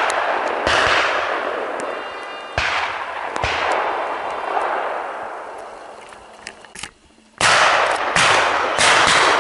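Shotgun shots fired at flying pheasants. Three come in the first few seconds, then three more close together from about seven seconds in, each trailing off in a long rolling echo.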